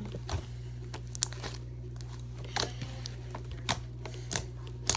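Homemade glitter slime being stretched and squeezed by hand, giving off several short sticky pops and clicks, over a steady low hum.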